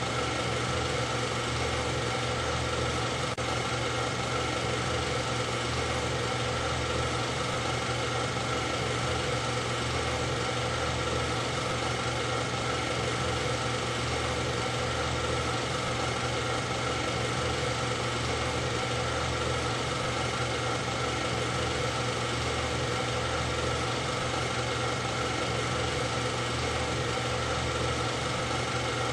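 Steady, unchanging mechanical drone with a fixed hum and hiss. It never rises or falls in pitch and does not stop.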